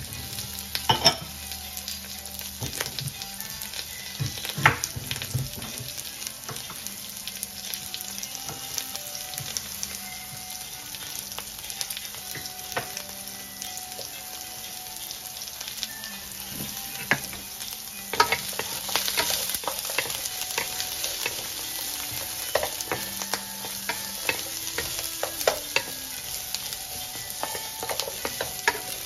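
Sliced onion and ginger frying in a nonstick wok with a steady sizzle. Wooden spatulas scrape and tap against the pan now and then, more often in the later part.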